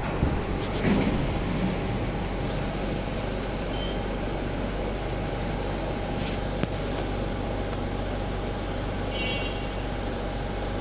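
Steady machinery hum, with a constant low drone and an even mid-pitched tone running through it. A few brief knocks in the first second or so.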